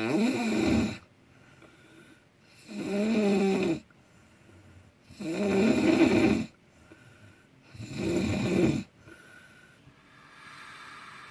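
A sleeping man snoring loudly and rhythmically. There are four heavy snores, each about a second long and about two and a half seconds apart, with quieter breaths between them and a softer breath near the end.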